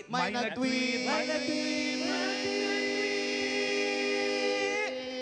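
Singing of a short jingle: a brief rising phrase, then a long held note that cuts off near the end.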